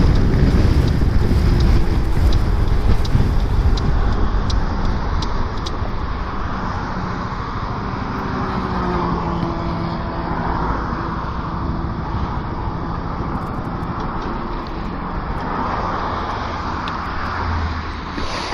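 Motor scooter riding in the rain: wind rumble on the microphone and road noise over the scooter engine's hum. The noise eases after about five seconds and the engine's steady tone comes through more plainly.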